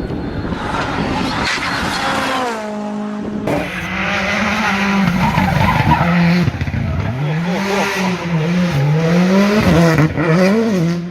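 Rally car at full effort on a stage: the engine note drops away, then rises and falls repeatedly through hard revving and gear changes, over heavy tyre and surface noise.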